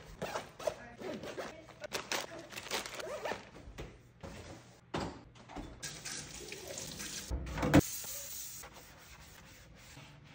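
Kitchen chore sounds: a zipper pulled on a lunch bag and the clatter of things being handled, then a kitchen tap running into a stainless steel sink, with a loud knock about three-quarters of the way through. Near the end, quieter scrubbing.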